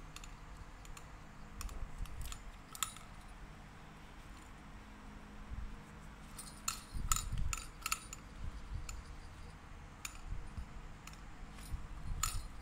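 Puppy nosing and pawing a tumbler-style treat-dispenser toy: scattered sharp clicks and jingles from its small bell, with the treats rattling inside as it rocks and rolls. The clicks bunch together about six and a half seconds in and again near the end.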